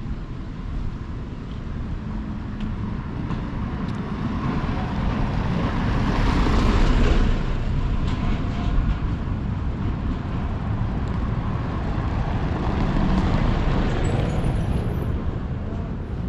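City street traffic: cars passing by, swelling to its loudest about halfway through and again a few seconds before the end.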